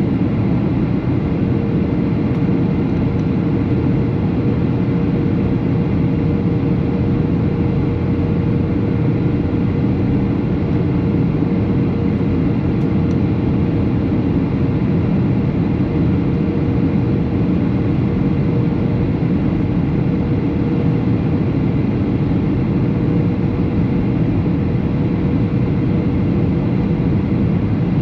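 Boeing 737 airliner in flight: a steady rumble of engines and rushing air, with a faint steady hum running under it.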